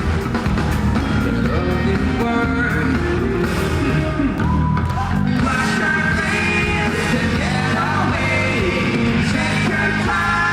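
Rock band playing live, with singing over the band.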